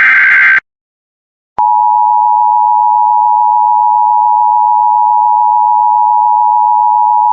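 Emergency Alert System broadcast: the end of the last SAME header data burst, a harsh digital buzz, cuts off, and after about a second of silence the EAS attention signal starts, a steady, loud two-tone beep held unbroken.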